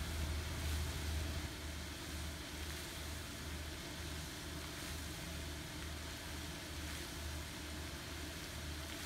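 Steady low rumble under an even hiss, a little louder for the first second and a half.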